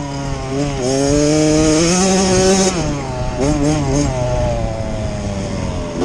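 Small youth dirt bike engines running hard, the pitch rising and falling several times as the riders open and close the throttle.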